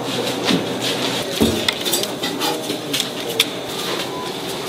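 Knife clicking and clinking on a cutting board and dishes as fruit is cut, in scattered, irregular strokes, with one dull thump about a second and a half in.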